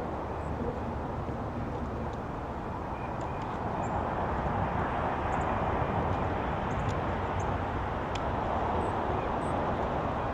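Steady outdoor background rumble that swells a little in the middle, with scattered faint, brief high chirps of small birds at a backyard feeder.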